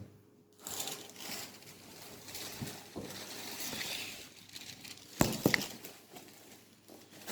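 Rustling and crinkling handling sounds as cookie dough is divided and set out on a baking tray, with two sharp knocks a little after five seconds in.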